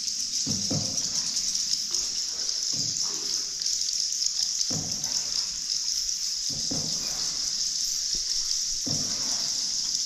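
Boat paddle strokes in water, about one every two seconds: five low swishes, each dying away. A steady high-pitched hiss runs underneath.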